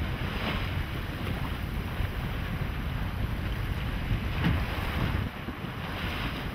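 Wind buffeting the microphone over choppy open water, with a few brief splashes from a school of Pacific white-sided dolphins leaping and surfacing.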